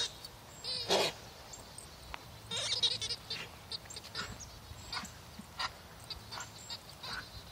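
Rubber squeaky toy squeaking over and over as a greyhound chomps it in her mouth: a string of short, high squeaks, a few longer ones in the first three seconds, then quicker, shorter ones.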